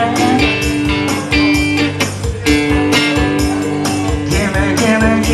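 Live band playing an instrumental stretch of a country-blues song, led by guitar over a steady beat.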